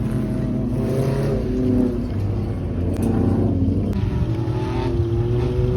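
Racing car engines running hard on a gravel track, their pitch climbing and dropping as they rev and change gear, with more than one engine heard at once.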